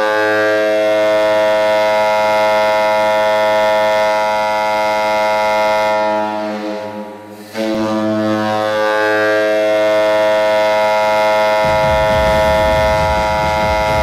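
Toledo Walleye arena goal horn: two long, steady horn blasts, the second starting about halfway through. Near the end of the second blast, the goal song's drums and bass come in underneath.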